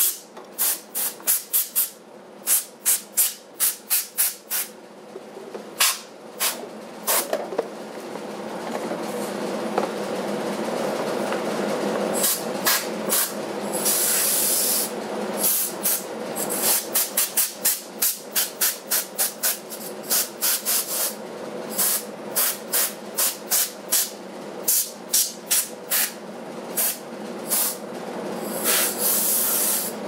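Compressed-air blow gun fired into a refrigerator's dust-clogged condenser coils: many short, sharp hissing blasts in quick strings, with a few longer blasts. Under it, a steady running noise grows louder through the first part and then holds.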